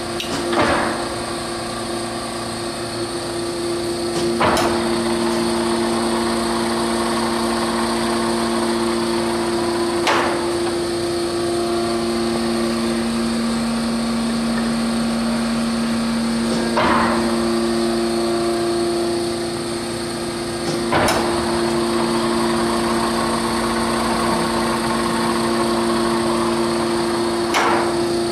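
Clausing Colchester 25-inch geared-head engine lathe running, with a steady two-note whine from the headstock gearing. A sharp clunk comes every few seconds, about six times.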